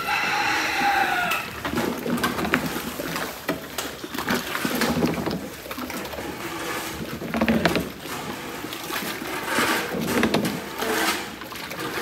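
Water-soaked cattle feed sloshing in a large clay tub as it is stirred with a wooden paddle, in slow strokes about every two and a half seconds. A short call falling in pitch opens the sound.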